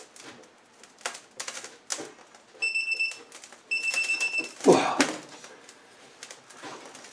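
Socket ratchet wrench on the gearbox shaft nut, clicking rapidly in two short runs among scattered knocks of tools on metal. A loud sound falls in pitch about halfway through.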